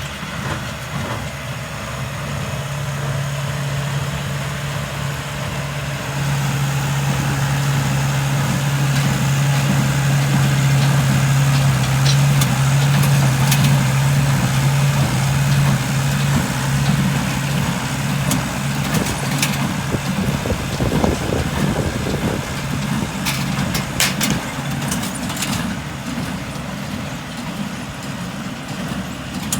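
Tractor engine running steadily with a low, even hum, getting louder about six seconds in, with a few light clicks later on.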